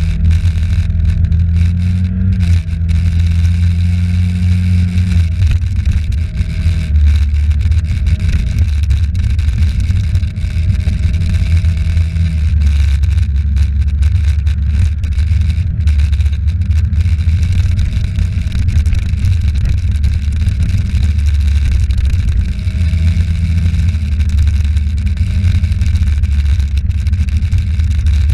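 A vehicle's engine running on the move in traffic, its low drone shifting up and down in pitch as it speeds up and slows, over steady road and wind noise.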